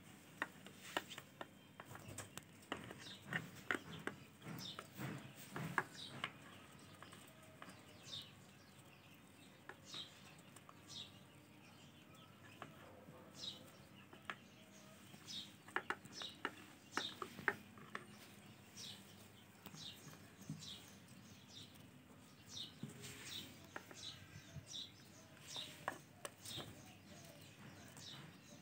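Ring-necked parakeet chicks giving repeated short, high begging chirps, each falling in pitch, while being hand-fed. Soft clicks and tapping from the feeding come through mostly in the first several seconds.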